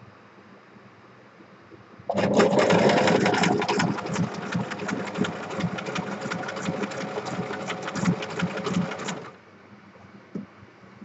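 Electric sewing machine running a zigzag stitch through a paper cutout, starting about two seconds in and stopping about seven seconds later.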